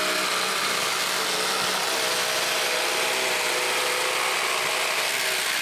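A power tool's motor running steadily at constant speed for several seconds: an even whirring noise with a faint low hum under it.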